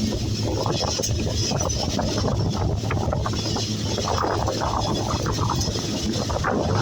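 Long freight train rolling past: a steady low drone under continuous rattling and clanking of wagons on the track.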